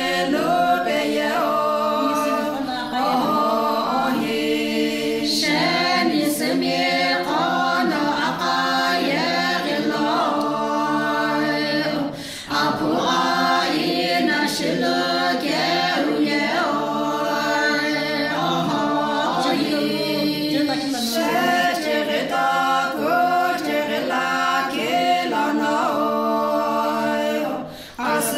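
A group of women singing together a cappella, with no instruments. The singing breaks briefly about twelve seconds in and again near the end.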